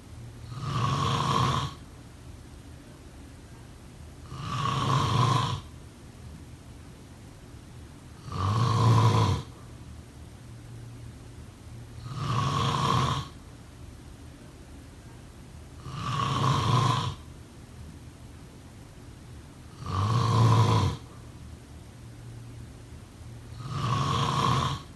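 A person snoring steadily: seven snores of about a second each, evenly spaced about four seconds apart.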